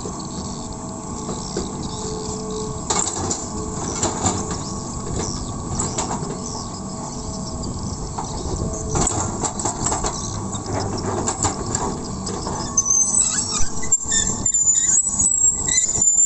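Hitachi hydraulic excavator working soil: its diesel engine runs steadily under load while the bucket scrapes and pushes dirt, with scattered knocks. In the last few seconds it grows louder, with more knocks and some high squeaks.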